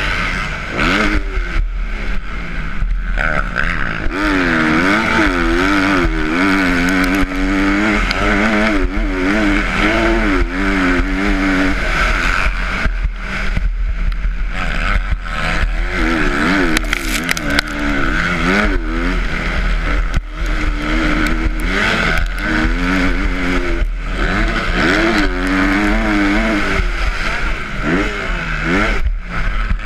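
Motocross bike engine revving up and down over and over as it is ridden hard around a dirt track, heard from an onboard camera on the bike.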